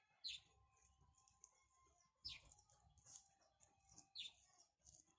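Faint bird calls: a short call that sweeps down in pitch, repeated about every two seconds, with higher chirps between.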